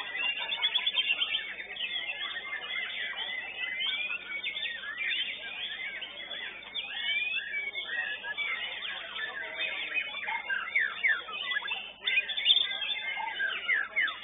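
White-rumped shama (murai batu) song: a dense, unbroken run of rapid whistled notes, chirps and trills.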